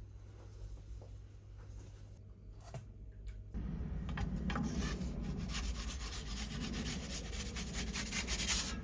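The gas burner flame of an Ooni Koda 16 pizza oven running, a steady rushing noise with rapid crackling, starting suddenly about three and a half seconds in after a quiet stretch.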